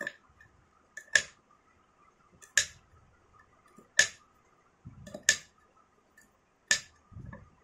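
Small knife slicing a red chili on a teak wood cutting board: the blade knocks sharply against the board about every one and a half seconds, six times.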